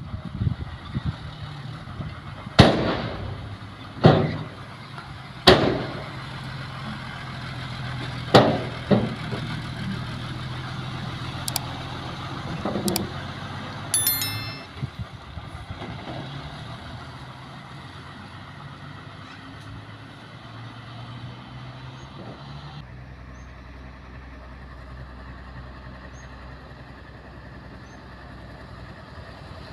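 Hyundai 5-ton dump truck's diesel engine running with a steady low hum, broken by several loud sharp bangs in the first nine seconds or so. About halfway through a short chime sounds, and after that a quieter truck engine hum carries on.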